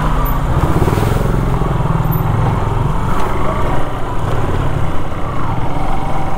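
Motorcycle engine running steadily at low revs as the bike is ridden slowly along a rough dirt lane.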